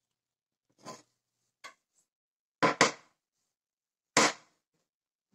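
Mustard seeds popping in hot oil in a nonstick frying pan: five sharp, separate pops, the loudest a close pair near the middle and one a little after four seconds. The seeds are starting to splutter, the sign that the oil is hot enough for tempering.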